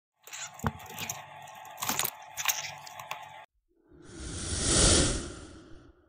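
Sharp clicks and crackles over a steady hum for about three and a half seconds, breaking off abruptly, then a swelling whoosh that peaks and fades out.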